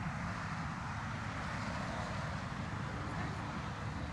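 Steady outdoor background noise: an even low rumble with a hiss above it and no distinct events.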